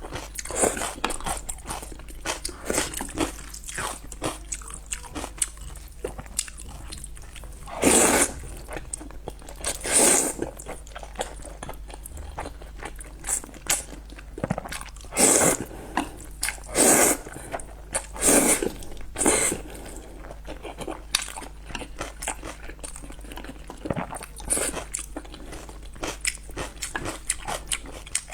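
Close-miked eating of spicy noodles: steady chewing and small wet mouth clicks, with about six louder, longer slurps mostly in the middle stretch.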